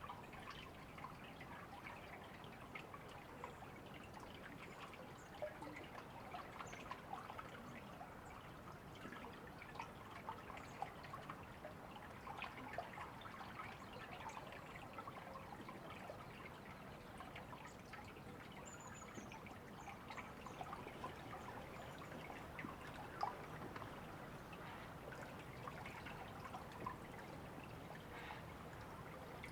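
River water trickling and gurgling steadily, with many small splashes and drips over a gentle wash.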